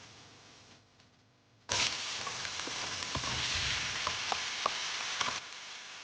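Minced beef and pork sizzling as it fries in a pan, a steady hiss with scattered crackles that starts after a silent second and a half and turns quieter near the end.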